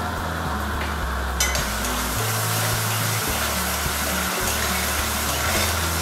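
Onion-tomato masala with fresh curd sizzling in a non-stick kadai while it is stirred with a flat spatula, with a short click of the spatula about a second and a half in. Background music with a bass line plays under it.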